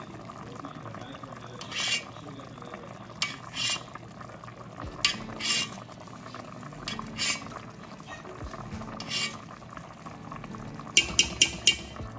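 A pot of black cod paksiw bubbling steadily as it simmers, with a spoon knocking and scraping against the pot every second or two, and a quick run of about five clinks near the end.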